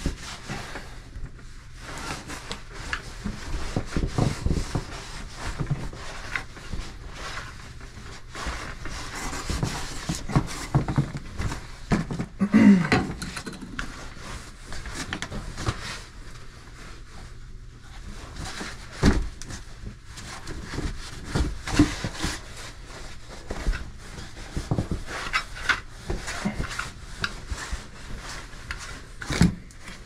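Terry-cloth towel wiping and rubbing down the ribbed housing of an electric motor, an irregular rustle and scrape with frequent small knocks. A louder bump about twelve seconds in.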